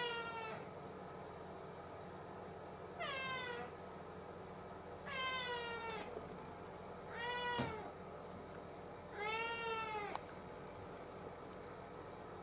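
Domestic cat meowing: four separate meows spaced about two seconds apart, most falling in pitch and the last one arched, after the falling tail of another meow at the very start.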